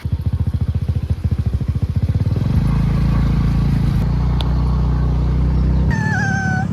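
Motor scooter engine running under way, a rapid even pulsing that settles into a steadier low drone. Near the end a wavering pitched tone comes in.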